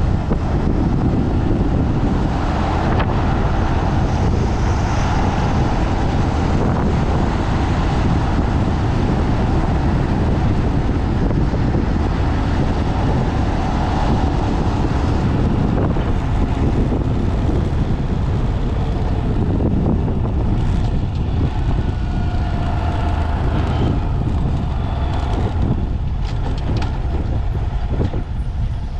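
Heavy wind buffeting on the microphone over a small single-cylinder 125cc motorcycle engine running while riding, its pitch shifting a little past the middle.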